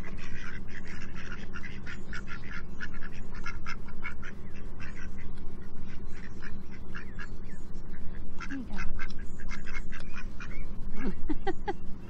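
A small flock of domestic ducks quacking and dabbling at food held out by hand, a quick run of short clicks and low calls that goes on without a break.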